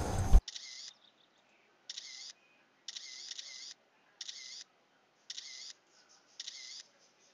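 Camera shutter sound effect, clicking about six times at roughly one-second intervals, each click a short burst with dead silence between.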